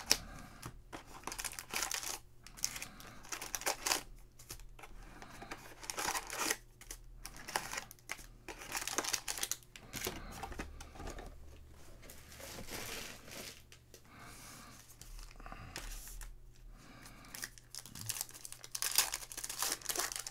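Foil wrappers of Illusions NFL trading-card packs crinkling and tearing as the packs are handled and opened, in irregular rustling bursts with short pauses.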